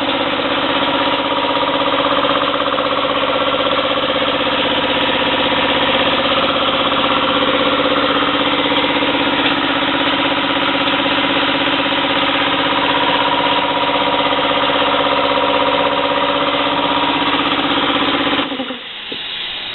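Jupiter Pneumatics 20-gallon horizontal air compressor running steadily with a constant mechanical whine, then shutting off abruptly about a second before the end.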